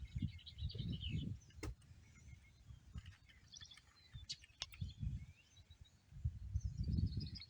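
Small birds chirping repeatedly, with a few sharp clicks and low rumbling surges near the start and again near the end.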